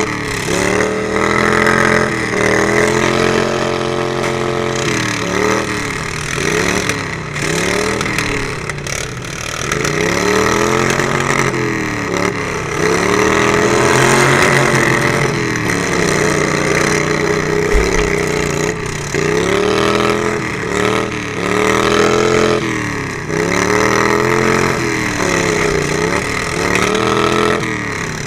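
Racing lawn mower's small engine revving up and down again and again, its pitch rising and falling every second or two as the throttle opens and closes.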